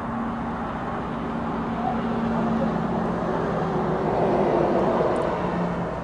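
Road traffic: a passing vehicle whose noise swells to a peak about four to five seconds in and then falls away, with a steady hum that drops in pitch as it goes by.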